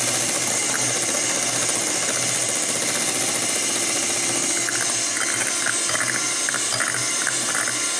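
Electric hand mixer running steadily, its twin beaters whipping eggs and icing sugar in a glass bowl into a light, creamy sponge-cake batter.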